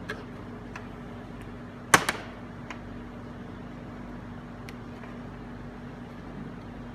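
A short HDMI adapter cable being handled and plugged in: a sharp double clack about two seconds in and a few lighter clicks, over a steady electrical hum.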